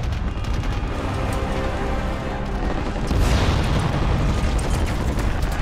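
Film sound of a burning warship being hit: a deep continuous rumble of explosions under sustained dramatic music, with a bigger blast about three seconds in.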